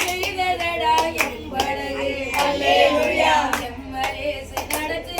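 A group of people singing together while clapping their hands in a steady beat, roughly two claps a second.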